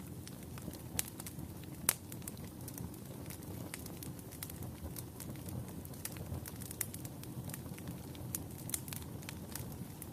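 Wood fire burning in a fireplace: a low steady rumble of flames with frequent sharp crackles and pops, one louder pop about two seconds in.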